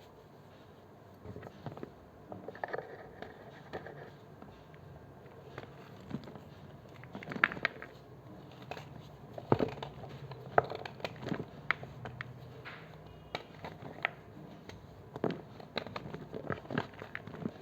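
Knife cutting and crunching through blocks of gym chalk: irregular sharp crunches and cracks, sparse at first and coming more often in the second half.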